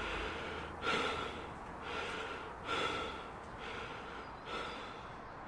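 A person breathing hard, heavy breaths coming about once a second, five in all, growing fainter.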